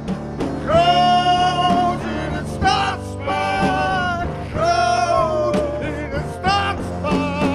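Rock theme song: a sung melody of long held notes over a steady drum beat.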